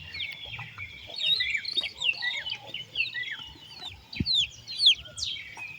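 Birds chirping: many short, high, falling chirps overlapping one another, with a single soft low knock about four seconds in.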